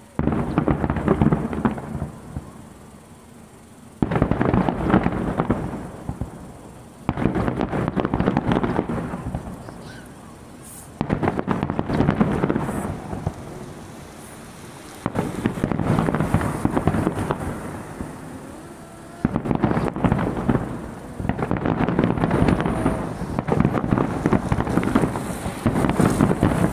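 Large aerial firework shells bursting in salvos: about seven waves of booms and dense crackling, each starting suddenly and lasting a second or three, a few seconds apart.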